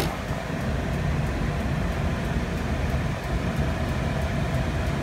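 A single sharp click right at the start, then a steady low rumbling room hum with a faint steady tone above it, like a fan or air conditioner running.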